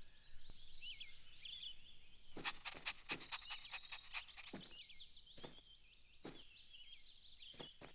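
Faint outdoor ambience of small birds chirping and twittering, with a few soft knocks or taps scattered through it.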